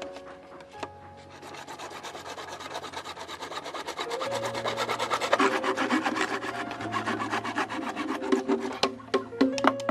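Rapid, continuous rasping strokes of a hand tool scraping across a workpiece, growing louder about four seconds in, over background music.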